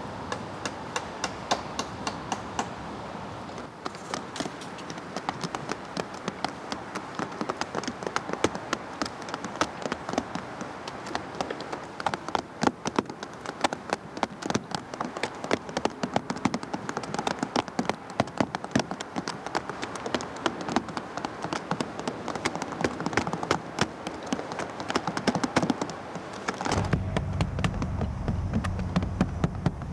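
Quick, irregular taps of small hammers driving bamboo nails into hinoki-bark roofing, several strokes a second overlapping. A low steady hum comes in near the end.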